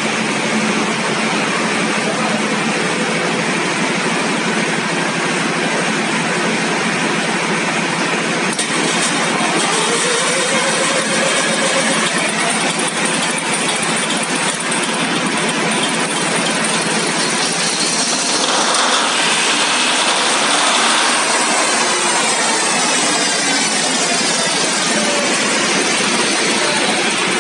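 Deutz 620 V12 engine running steadily at a loud, constant level, with a few faint rising and falling tones over the top partway through.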